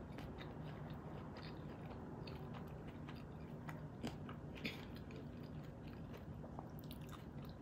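A person chewing a mouthful of soft food with the mouth closed: scattered small wet clicks and smacks.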